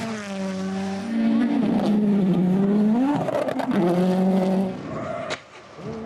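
Rally car engine revving hard at speed, its note falling and climbing as the gears change, with a sharp rise about three seconds in and a drop-off near the end.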